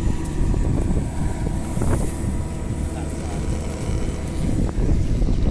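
Wind rumbling on the microphone: a continuous, uneven low rumble with a faint steady hum and thin high tone beneath it.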